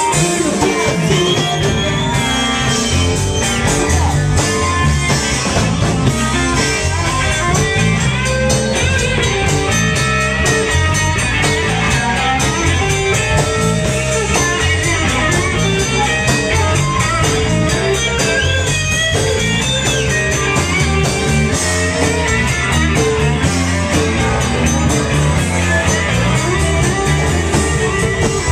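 Live rock and blues band playing: electric guitar lines over a bass line and drums.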